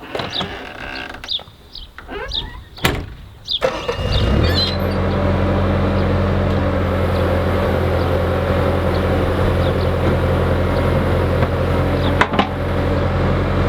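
Skid steer engine starting about four seconds in, then running steadily at idle. Before it, a few knocks and clicks as the operator climbs into the cab, and one sharp knock near the end.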